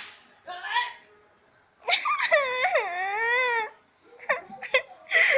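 A girl crying: a short whimper, then one long wavering wail of about two seconds, breaking into shorter sobs near the end.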